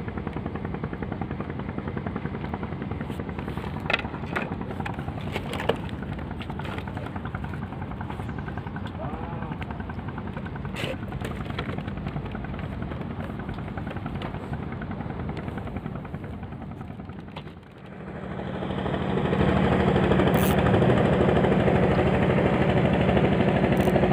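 Steady, rapid puttering of a small wooden motor boat's engine, louder after a break about eighteen seconds in. A few sharp knocks come in the first half.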